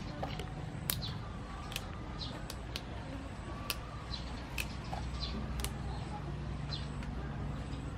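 Long beans being snapped by hand into short pieces: a crisp snap roughly every second, about seven in all. Faint bird chirps sound in the background.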